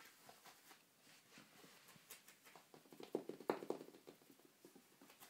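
Faint, irregular soft taps and rustling of movement on a carpeted floor, a louder flurry for about a second around three seconds in.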